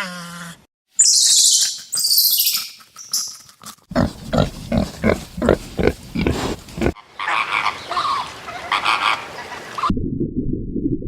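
A string of separate animal calls cut one after another: shrill squealing, then a run of rhythmic short grunts like a pig's, then a busy high-pitched stretch of calls, ending in a low rumbling growl.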